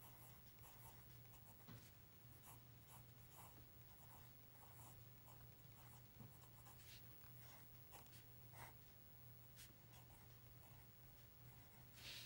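Faint scratching of a TWSBI Vac 700R fountain pen's medium nib on paper, writing in cursive in short, irregular strokes over a steady low hum.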